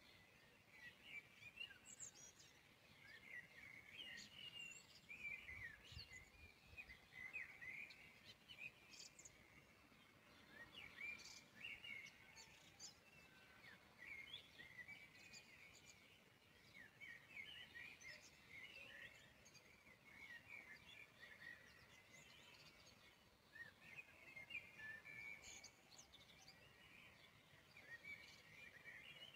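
Faint birdsong: many short chirps through the whole stretch.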